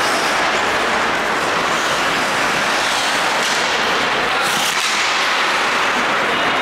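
Steady wash of ice rink noise during an ice hockey game, with a couple of brief brighter scrapes around the middle.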